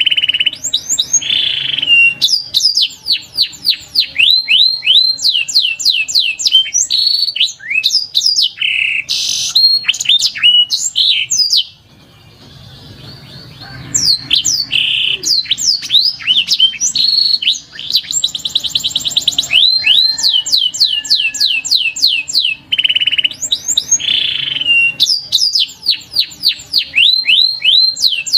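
Domestic canary song: long runs of rapid, repeated down-sweeping whistled notes and rolling trills, with a fast buzzing trill about two-thirds of the way through. The song breaks off briefly a little before halfway.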